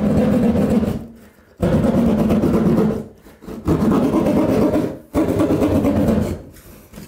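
A hand drywall jab saw cutting through a gypsum drywall ceiling in quick back-and-forth strokes. It comes in four runs of about a second each, with short pauses between them.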